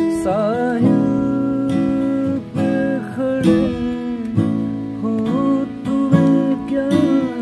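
Acoustic guitar strummed in steady chords, with a man's voice singing a wavering, sustained melody over it.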